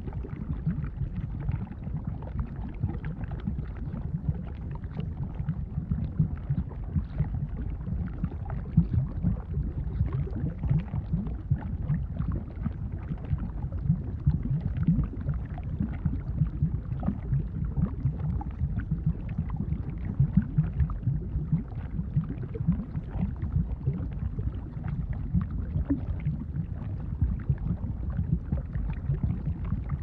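Bubbling volcanic lava sound effect: a thick, low bubbling made of many small pops in quick succession, running on without a break.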